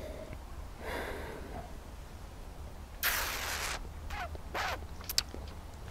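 A wine taster's quiet breath and mouth sounds as he noses and sips white wine: a short noisy rush of breath about three seconds in, a softer one after it, then a few small mouth clicks near the end.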